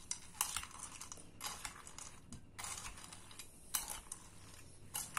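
Metal spoon stirring a salad of dry croutons and beans in a glass bowl: irregular bursts of scraping and rustling, about one a second, with light clinks of the spoon against the glass.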